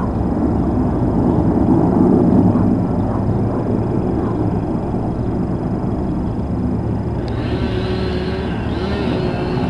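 Sikorsky S-64 Air-Crane heavy helicopter hovering low over a lake, filling its tank through its snorkel: steady rotor and turbine noise. About seven seconds in, a higher whine joins it.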